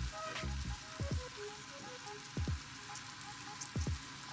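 Tomato slices frying in oil in a stainless steel pan: a steady sizzle. Background music plays over it, with a few short low thuds and brief notes.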